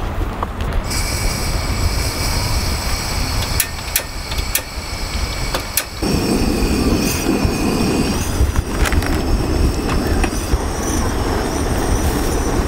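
Kovea two-burner butane camping stove being lit: a steady high hiss starts about a second in, a few sharp clicks follow, and about six seconds in the burner catches and runs with a steady flame roar. Strong wind buffets the microphone throughout.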